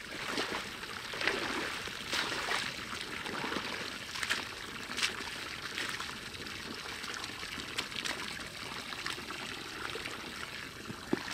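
Water pouring from a garden hose into a muddy, water-filled pit, with irregular splashes and squelches as the wet mud is stirred with a long bar and waded through.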